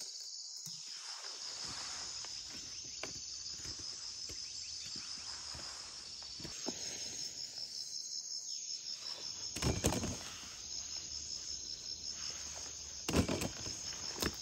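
Insects chirring in a steady, high, finely pulsing drone, over light rustling in grass and leaf litter, with two louder short thumps, one a bit past halfway and one near the end.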